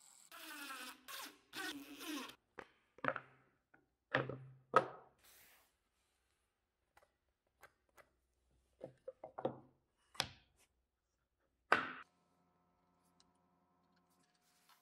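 DeWalt cordless drill/driver whirring in three short spurts as it sets screws. This is followed by a series of sharp wooden knocks and thunks, loudest about five seconds in and again near twelve seconds, as plywood pieces are handled and set down on the steel saw table.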